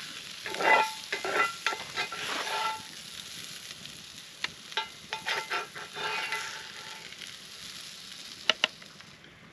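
A utensil scraping and clinking in a skillet as cooked vegetables are scooped out onto a plate: a run of scrapes with a faint ring, heaviest in the first three seconds and again around five to six seconds in, then two sharp clicks near the end.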